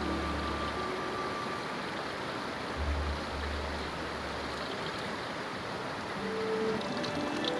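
Fast river water rushing steadily over rocky rapids.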